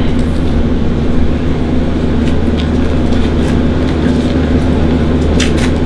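Steady low hum of kitchen machinery, with a few light clicks and crinkles from a small seasoning packet being opened, most of them near the end.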